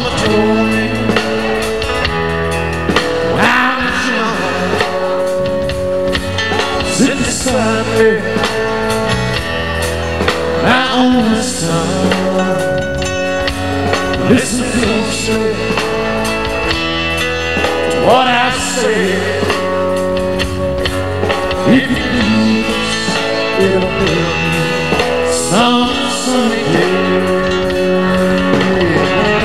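Live country-rock band playing, with a male lead vocal sung over strummed acoustic guitar, electric guitar and drums.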